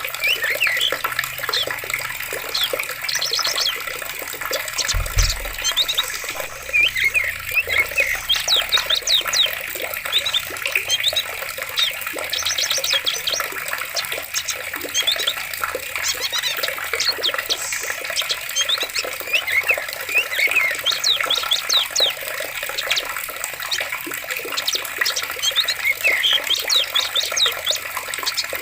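Steadily running water with many birds chirping and trilling over it, short calls and rapid trills coming again and again.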